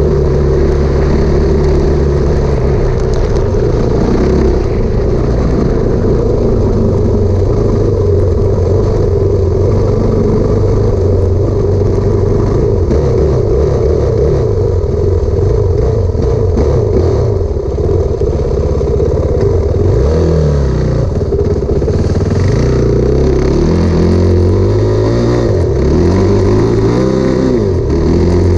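Enduro motorcycle engine, heard from on the bike, running hard across snow; its pitch rises and falls again and again as the throttle is worked, with the swings most marked in the second half.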